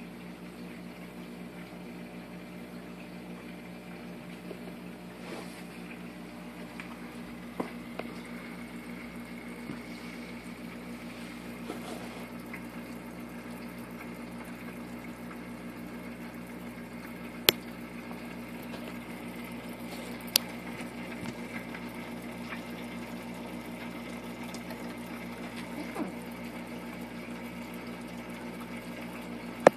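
Aquarium filter or pump humming steadily, with faint water noise, and a few sharp clicks scattered through.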